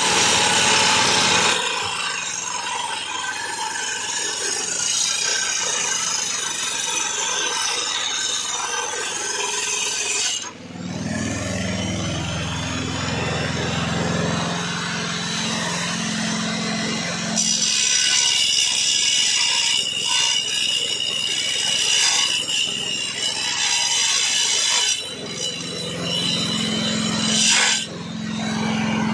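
Handheld electric angle grinder cutting clay tiles with a cutting disc: a loud, gritty grinding whine that keeps running, its pitch and grit shifting a few times as the disc moves through the tile, with brief dips around the middle and near the end.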